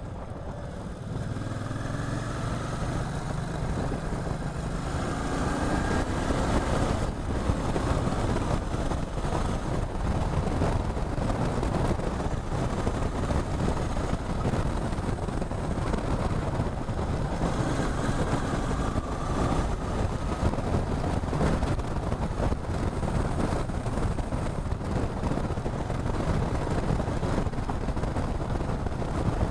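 Motorcycle riding on the road: the engine note rises over the first few seconds as it gets louder, then settles into steady running buried in wind and road rush.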